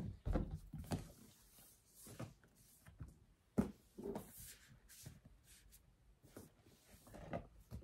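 A large cardboard advent calendar box being turned over and handled: a few soft knocks and rustles of cardboard, the sharpest knock about three and a half seconds in.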